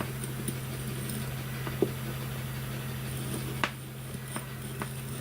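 Steady low electrical hum with a few light clicks and taps of small tools and wire being handled during hand soldering; the clearest clicks come about two seconds in and again about three and a half seconds in.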